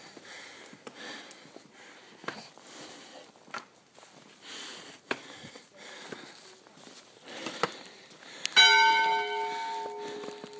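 A church bell strikes once about eight and a half seconds in and rings on, slowly fading; it is the loudest sound. Before it, footsteps in deep snow at a steady walking pace, about one step every second and a half.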